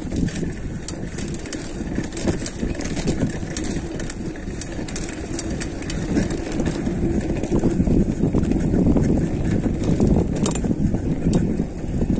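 Mountain bike riding down a dirt trail: wind buffeting the microphone over tyre noise, with many sharp rattles and clicks from the bike on rough ground. It grows louder about eight seconds in.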